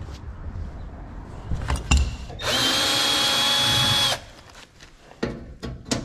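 Cordless drill/driver running in one steady burst of about a second and a half on a furnace panel screw, its whine holding an even pitch. A few knocks of handling come before and after it.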